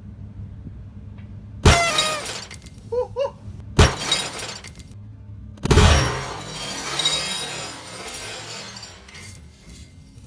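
An aerosol can of silly string exploding inside a running microwave oven: three sharp bangs about a second and a half, four and six seconds in. The last and biggest is followed by a long crash of breaking glass as the microwave's glass turntable plate shatters. A low steady hum from the running microwave sits under it.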